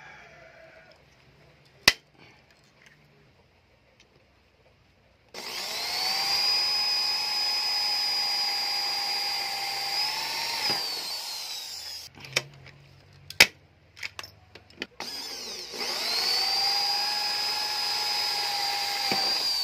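Electric drill boring rivet holes through a stainless steel patch on a bicycle frame's head tube: two runs of several seconds each, a steady whine that dips and winds down as the trigger is let go. A few sharp clicks sound in the pauses, about two seconds in and in the gap between the runs.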